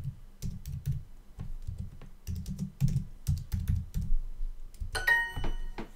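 Typing on a computer keyboard: irregular quick keystrokes. About five seconds in, a short bright chime rings for under a second.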